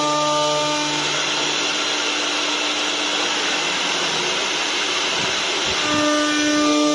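CNC wood-turning lathe running with a steady motor whine; through the middle a dense rushing hiss of the cutter turning wood covers the whine, which comes back clearly near the end.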